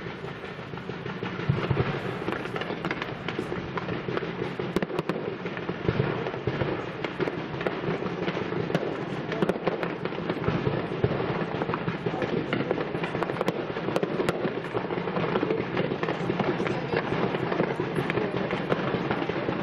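Professional fireworks display: a dense, continuous crackling of many small pops and reports, with a few louder bangs now and then.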